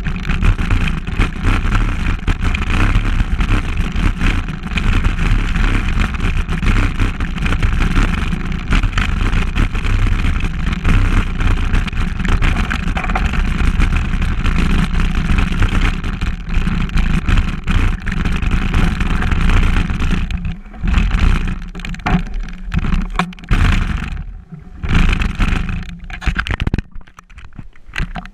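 Wind buffeting a handlebar-mounted action camera's microphone as a mountain bike rolls over a dirt trail, with tyre noise and rattling from the bike. From about 20 seconds in, the steady rush breaks up into short gusts with quieter gaps between them.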